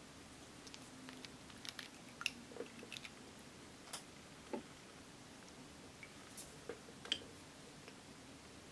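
Light clicks and taps of glass nail polish bottles and their plastic caps being handled and uncapped, scattered over several seconds, with sharper clicks about two seconds in and about seven seconds in.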